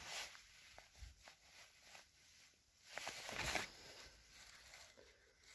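Faint rustling and brushing of grass and leafy plants, with a short louder rustle about three seconds in.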